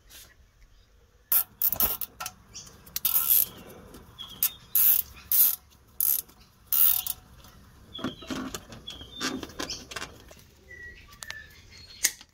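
Nylon cable tie being pulled tight, its teeth ratcheting through the lock in irregular bursts of quick clicks, then a single sharp snip near the end as side cutters trim the tail.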